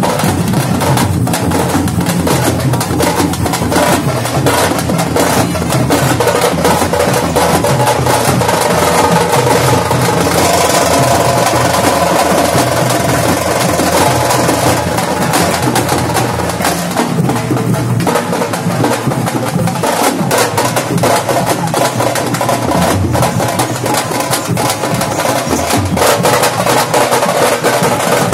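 A group of processional drummers beating hand-held drums with sticks in a loud, dense, continuous rhythm.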